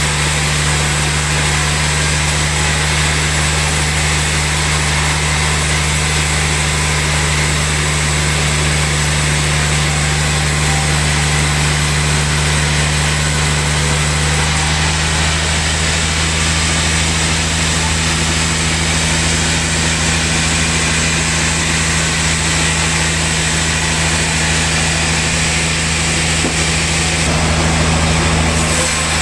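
Sawmill machinery running steadily: a constant engine-like drone under an even hiss, with no breaks or knocks.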